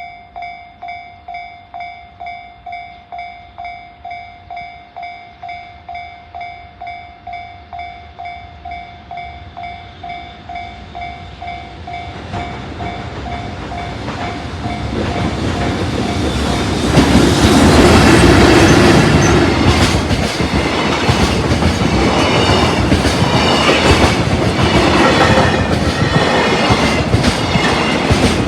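A Japanese level-crossing warning bell rings at about two strokes a second. About fifteen seconds in, a freight train hauled by an electric locomotive comes through close by and drowns it out; the train is at its loudest a couple of seconds later. The passing wagons then keep up a rhythmic clatter of wheels over rail joints.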